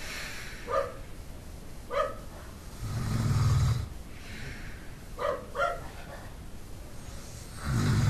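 A sleeping man snoring, two long low snores about five seconds apart, the second starting near the end. Between them a dog barks a few single barks, one about a second in, one about two seconds in and two close together about halfway, the last of a barking bout.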